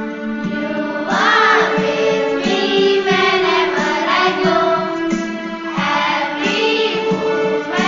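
A song: voices singing a wavering melody over steady held instrumental notes, the singing coming in about a second in.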